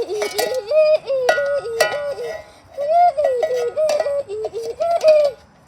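A high-pitched voice making quick wavering sung notes, about three or four a second, each bending up and down, with a short break in the middle and a few sharp clicks.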